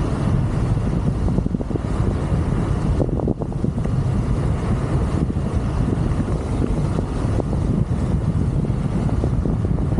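Strong wind buffeting the microphone of a rider on a moving electric scooter: a loud, steady, gusting rumble.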